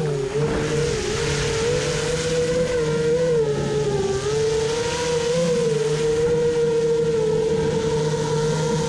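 A small motor's high, steady whine, its pitch wavering and dipping briefly about four seconds in, then holding level.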